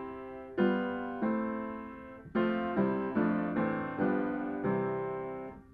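Solo piano music: a short phrase of struck chords, each dying away, that stops abruptly near the end.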